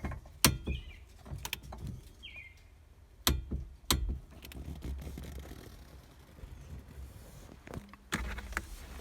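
Hand tools clicking and knocking against metal while the steering column's U-joint pinch bolt is worked on: a few sharp, separate clicks, the loudest about half a second in and around three to four seconds in, with another near the end.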